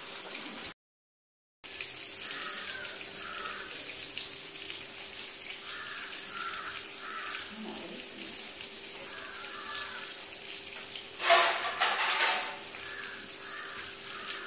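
Masala-coated Indian mackerel frying in oil in a pan: a steady sizzle that cuts out briefly near the start, with a louder burst about eleven seconds in lasting about a second.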